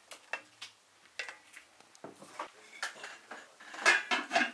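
Wooden spoon knocking and scraping against the inside of a large aluminium pot, a few short clicks at a time. Near the end the pot's lid is set on with a louder, ringing metal clatter.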